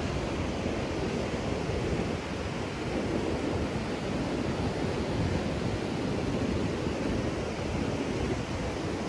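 Steady rush of ocean surf breaking along a sandy beach, mixed with wind on the microphone.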